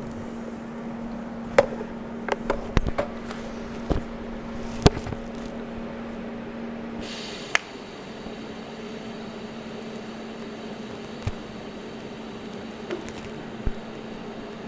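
Sharp metal clicks and taps, several in the first five seconds, over a steady hum, as stainless sheet-metal parts are handled and set up for tacking. About seven seconds in there is a short hiss, and then a faint steady high whine begins, with a few single clicks after it.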